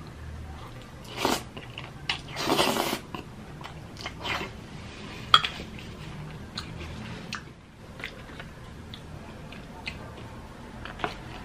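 Close-up mouth sounds of chewing a forkful of baked spaghetti, with two louder noisy stretches in the first three seconds. A sharp click comes about five seconds in, among smaller mouth and handling clicks, and a short click near the end as a piece of crispy fried chicken comes to the mouth.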